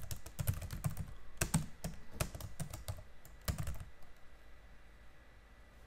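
Computer keyboard typing: a quick run of keystrokes that stops about four seconds in.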